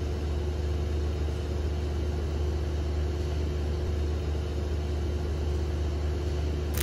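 Steady low rumble of street traffic picked up by a security camera's microphone, with a faint constant hum over it.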